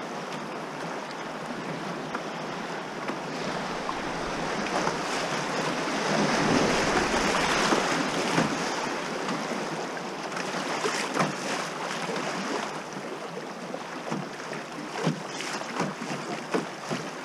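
Fast river current rushing and splashing against a loaded canoe's hull as it runs a riffle. It swells about six to eight seconds in, and toward the end single sharp slaps of water stand out.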